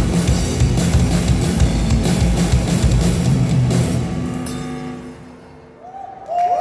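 Live rock band with drum kit and electric guitars playing the closing bars of a heavy song. About four seconds in the full band stops and the last held notes ring out and fade away.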